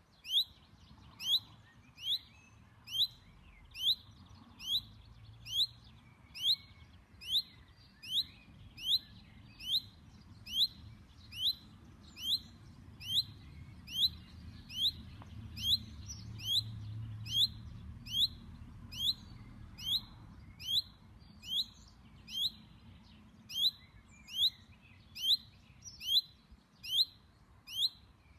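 Chaffinch repeating a single short down-slurred call note about once a second, monotonous and unvarying, with a brief pause a little past two-thirds through.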